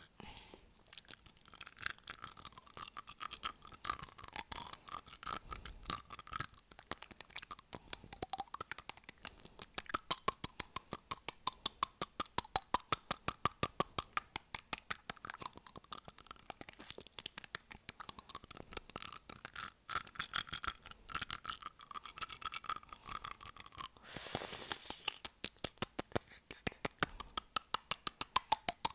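Long acrylic fingernails tapping on front teeth in a quick, steady run of sharp clicks, about four a second, picked up close on an earphone microphone.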